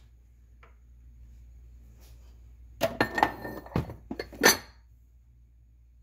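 Drinking cups clinking and knocking against one another on a cupboard shelf as one is picked out: a quick cluster of clinks about three seconds in, the sharpest one near four and a half seconds.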